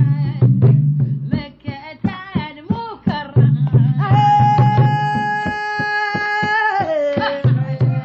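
A singer performing a praise song for the Prophet (madih) over a steadily beating drum, holding one long note for about two and a half seconds in the middle before sliding down in pitch.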